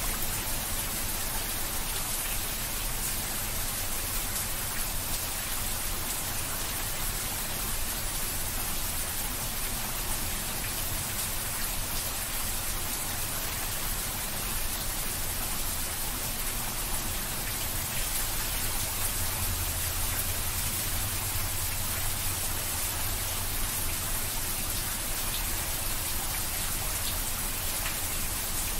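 Heavy rain pouring steadily onto a flat rooftop and the trees around it: a dense, even hiss with no letup. A low rumble runs underneath and swells slightly about two thirds of the way through.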